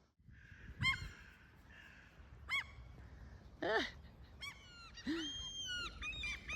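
Hooded crows calling: single short calls about once a second at first, one louder and lower about halfway through, then several birds calling over one another from about two thirds of the way in.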